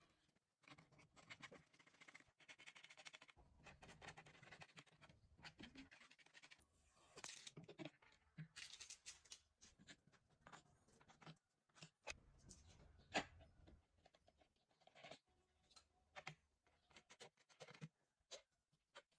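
Faint scraping, rustling and light clicks of computer parts being handled close to the microphone, with one sharper click about thirteen seconds in.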